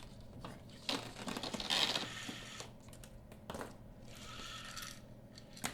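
Light clicks and short stretches of scraping as the parts of a traverse drapery track are handled, with one longer scrape lasting about a second near the middle.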